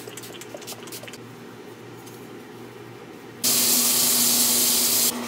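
A few faint spritzes from a pump spray bottle. Then, about three and a half seconds in, a sink tap runs loudly for under two seconds and cuts off suddenly.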